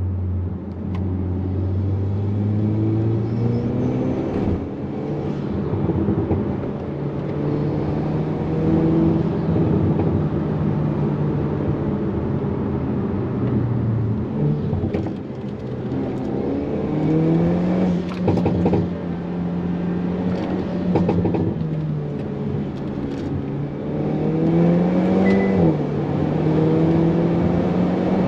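Hyundai Kona N's turbocharged 2.0-litre four-cylinder under hard acceleration, heard from inside the cabin. The engine note climbs with the revs and drops back sharply at each gear change, several times over, with a few short sharp knocks around some of the shifts.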